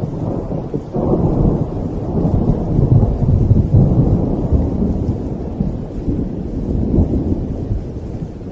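Loud thunder: a sharp crack about a second in opens a long, deep roll that swells and slowly fades. A second, smaller crack comes near the end.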